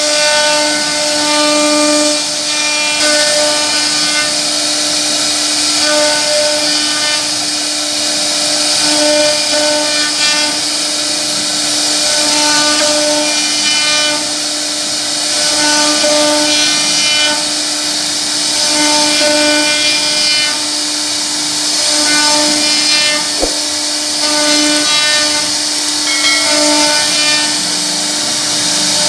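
CNC wood router running and carving wood: a steady high spindle whine with overtones that swells and eases as the bit takes load, over the hiss of the cutter in the wood. A single short click comes near the end.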